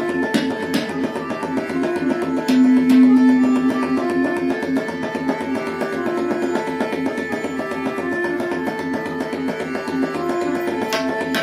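Tabla solo over a lehra, the repeating melodic cycle that accompanies a tabla solo in Hindustani music, here heard as a line of held notes. The tabla strokes are sparse against it, and a louder low held note sounds for about a second near the start.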